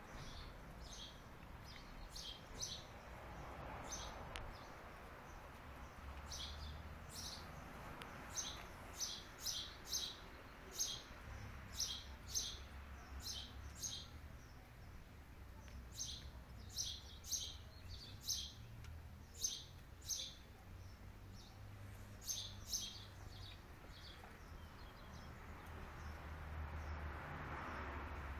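Small birds chirping: short, sharp, high chirps in irregular runs, falling quiet for the last few seconds, over a faint low rumble.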